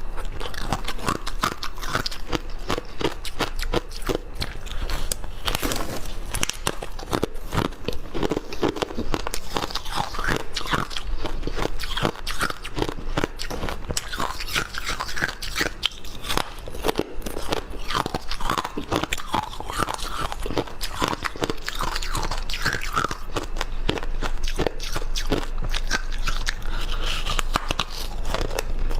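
A person biting and chewing crunchy ice and freezer frost close to the microphone: dense, continuous crunching with no pauses.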